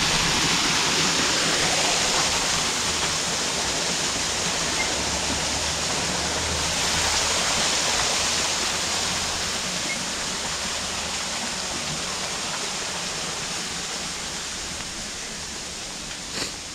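Small waterfall pouring over a rock ledge, a steady rush of falling water that slowly grows fainter over the second half. A single short click near the end.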